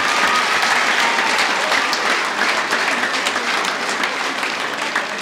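Crowd applauding, a dense, steady clapping that begins to ease off near the end.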